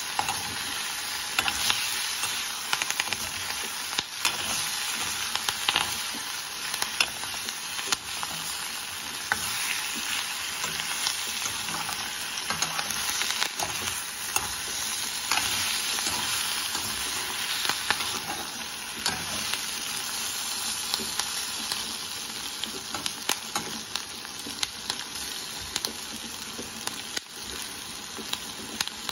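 Food sizzling steadily as it dry-fries in a kadai, with a metal spatula scraping and clicking against the pan many times as the pieces are stirred and turned.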